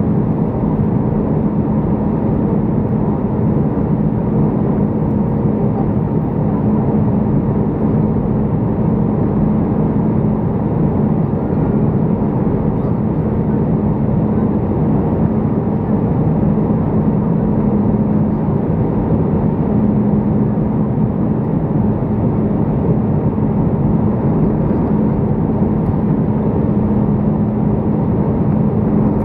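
Steady cabin noise inside an Airbus A319 descending on approach: engine and airflow rush with a steady low hum running through it.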